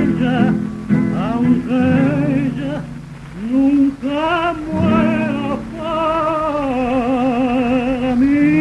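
A 1931 78 rpm shellac record of a male singer holding long, wavering vibrato notes with no clear words over strummed guitar chords, with the disc's surface hiss beneath.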